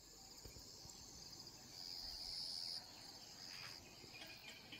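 Faint, steady high-pitched trilling of insects, louder for about a second in the middle.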